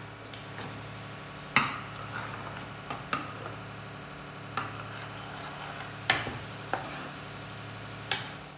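A plastic spoon stirring thick potato curry in a stainless steel pot, mixing in the just-added mustard-seed and curry-leaf tempering. The spoon knocks against the pot about five times, roughly every one and a half seconds, over a steady low hum.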